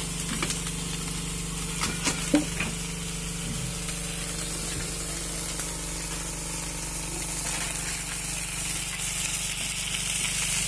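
Whole fish sizzling as they fry in hot oil in a pan, a steady hiss. A few sharp clicks come around two seconds in.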